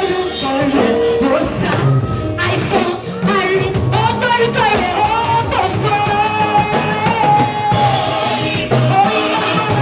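Gospel choir and lead singer singing with a live band, drum kit included; one voice holds a long high note a little past halfway.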